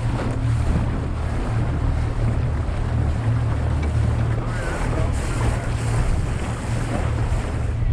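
A boat's twin Yamaha 150 outboard motors running steadily with a low, even drone. Wind buffets the microphone and water rushes past the hull.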